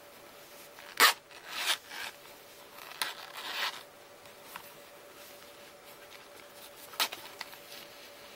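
Metal Riri zipper on a bridle-leather zip-around wallet being drawn open in two short rasping runs, with a few sharp clicks as the wallet is handled.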